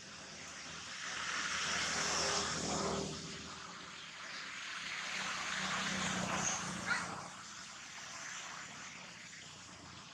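Motor vehicles passing by: engine and road noise swells and fades twice, loudest about two and six seconds in, with a brief sharp sound near seven seconds.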